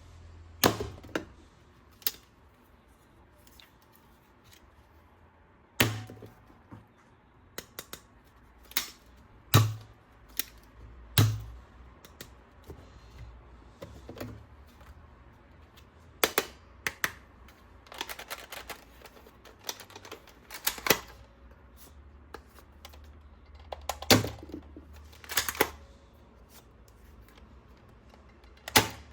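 Hard plastic toys and packaging being handled: irregular sharp clicks, snaps and knocks, some single and some in quick clusters, with short pauses between.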